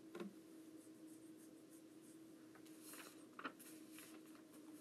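Near silence: room tone with a faint steady hum, and faint rustling of paper sheets being handled about three seconds in.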